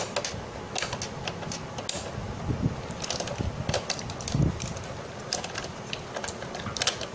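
Irregular small plastic clicks and light knocks as the ink dampers are unclipped and pulled off an Epson inkjet printer's print-head carriage and handled.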